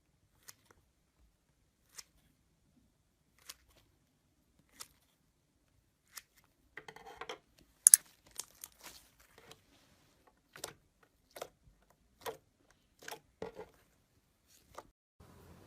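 Slime being pressed and stretched by hand, giving sharp crackling pops: a few single pops spaced a second or more apart, then a busier run of crackles and pops from about seven seconds in, the loudest near eight seconds.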